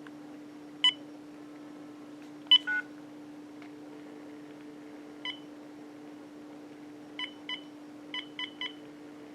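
Uniden EXS2080 cordless handset giving short key-press beeps: single beeps scattered through the first half, then a quick run of four or five near the end. Underneath runs a steady hum on the line, the interference the owner puts down to a non-OEM power adapter.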